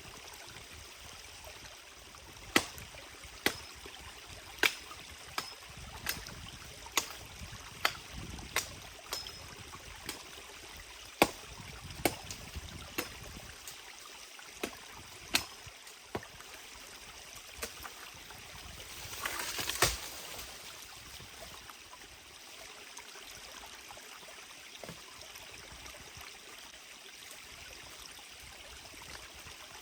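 A forest stream running steadily, with a string of sharp clicks about once a second through the first half and a short rustling crunch about twenty seconds in.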